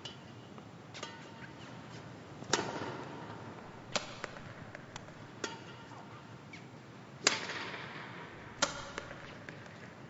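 Badminton racket striking shuttlecocks: about eight sharp hits at uneven intervals, the loudest about two and a half and seven seconds in. Each hit rings out briefly in the echo of a large sports hall.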